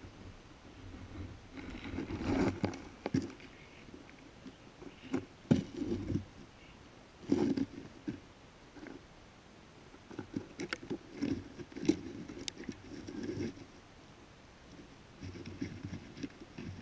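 Handling noise from a GoPro lying on a dirt and dead-leaf bank: irregular scrapes, crunches and sharp knocks as it is shifted about on the ground, in several clusters with quieter gaps between.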